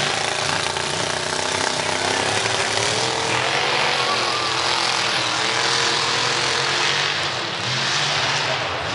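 Lifted 4x4 mud truck's engine running hard at high revs as it churns through a mud pit, its pitch rising and falling as the throttle is worked, over a dense wash of engine and mud noise. It eases briefly about three-quarters of the way through.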